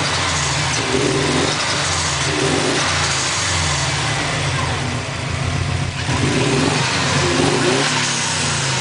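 2004 Subaru WRX's turbocharged flat-four engine running, with a rough, uneven note; the car's computer reports misfires on all cylinders.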